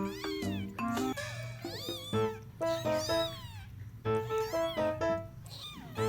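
Cat meows, many in quick succession, each rising and falling in pitch, over a music track with short stepped notes.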